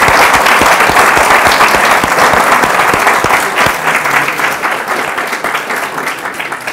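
Audience applauding: a dense patter of many people clapping, strong for the first few seconds, then thinning out and dying away near the end.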